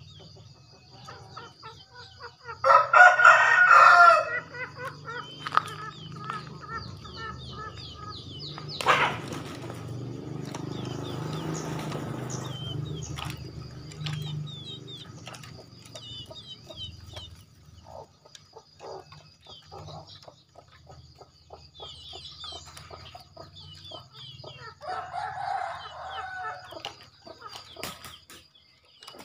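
Male green junglefowl crowing: a short, hoarse call about three seconds in and a fainter one near the end. A steady high insect whine and small bird chirps run underneath, with a sharp knock about nine seconds in.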